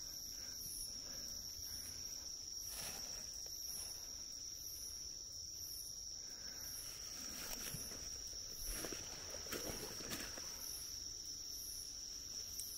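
Night insects singing, crickets among them: a steady high trill with a faster pulsing call above it. A few soft footsteps or rustles in the undergrowth break in between about 7 and 10 seconds in.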